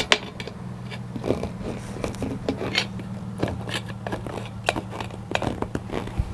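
Rapid, irregular metal clicks and scrapes of tire tools working against a motorcycle wheel rim, over a steady low hum.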